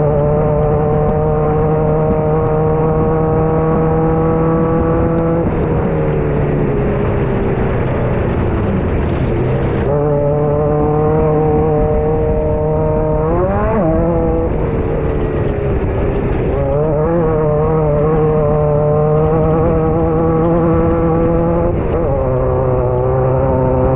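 Race buggy's engine heard from inside the car, held at steady high revs. The pitch sags for a few seconds about five seconds in, then dips briefly three more times as the throttle is lifted, climbing back each time.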